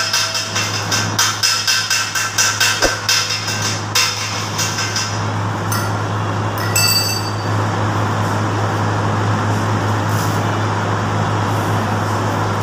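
Stick (arc) welding on a steel-tube hand trolley frame with a small portable arc welder. The arc crackles and pops densely for the first few seconds, then settles into a steadier sizzle, over a constant low hum.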